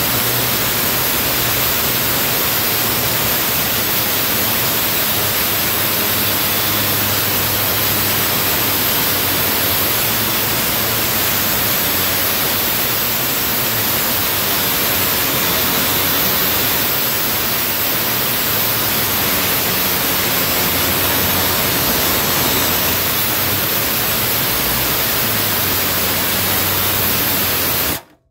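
Milwaukee M18 FUEL 6-inch cordless angle grinder (2980-20) cutting into rusty steel: loud, steady grinding of blade on metal that cuts off suddenly near the end. The blade is worn and no longer cuts as well as it used to.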